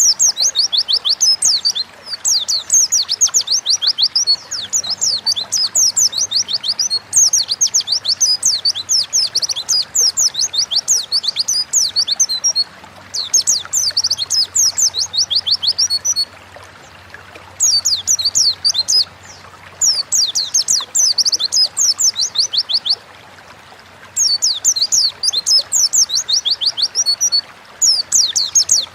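A pleci (white-eye) singing fast, high-pitched twittering phrases of quick sweeping chirps, each phrase lasting a few seconds and separated by short pauses.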